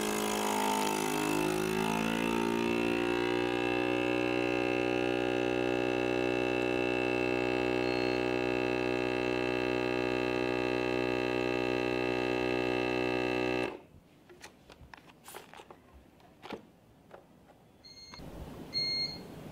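Vacuum sealer's 110 W pump motor running for about fourteen seconds as it draws the air out of the bag, its hum shifting in pitch over the first few seconds, then holding steady before cutting off suddenly. Then a few faint clicks and two short electronic beeps near the end.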